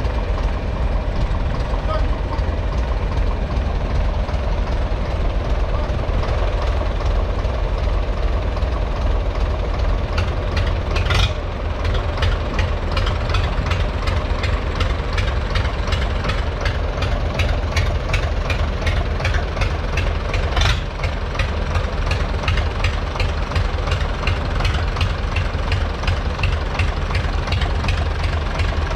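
Tractor diesel engine idling steadily, with two short sharp knocks about a third and two thirds of the way through.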